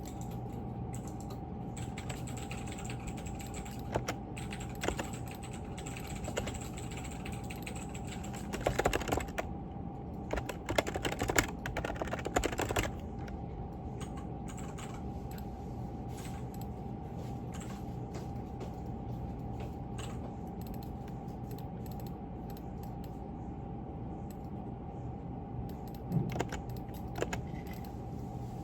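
Typing on a computer keyboard: scattered key clicks with two dense flurries, one in the middle and a shorter one near the end, over a steady low room hum.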